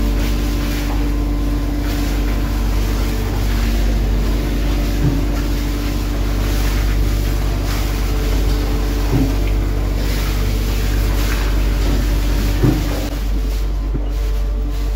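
A fishing boat's engine running steadily, a constant drone with several steady tones, under a hiss of water running from a hose onto ice in the fish hold, making slush ice. Three light knocks come through it.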